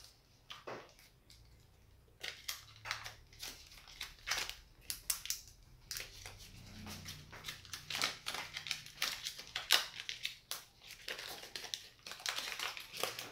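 Protective plastic film being peeled off a new smartphone, crinkling and crackling in irregular short bursts that begin about two seconds in.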